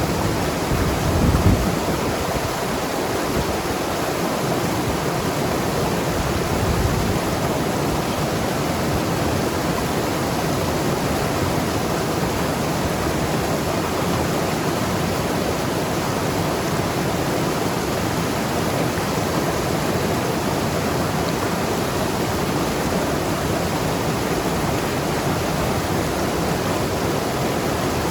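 Mountain river rushing and gurgling over rocks: a steady, dense wash of water. A brief low rumble swells over it about a second in.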